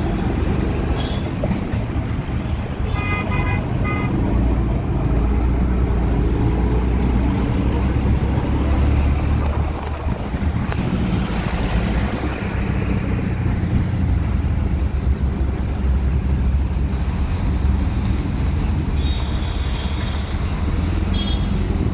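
Auto-rickshaw's small engine running with a steady low rumble as it drives through traffic, with wind and road noise. A few short horn beeps about three seconds in, and more near the end.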